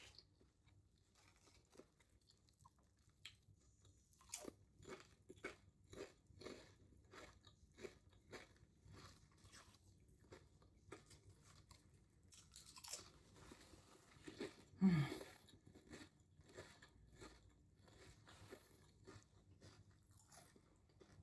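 Close-up chewing of an Italian hoagie sub sandwich, with soft crunches coming about twice a second. There is a short hummed "mm" about fifteen seconds in.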